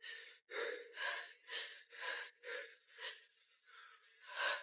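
A person breathing hard, panting in quick, evenly spaced breaths about two a second, with one stronger breath near the end.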